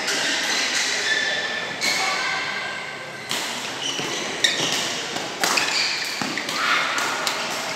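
Badminton rally: rackets striking the shuttlecock in an irregular run of sharp hits, with sneakers squeaking on the court floor, echoing in a large hall.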